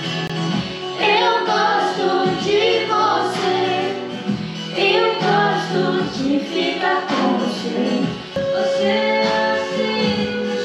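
Music: a song with singing voices, with one long held note about eight seconds in.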